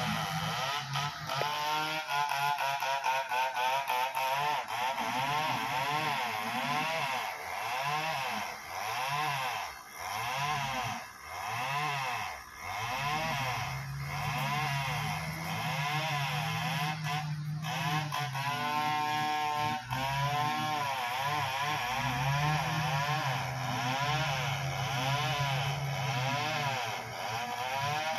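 Caterpillar motor grader's diesel engine running steadily as the machine works a gravel road bed and drives back toward the camera. Its note wavers up and down.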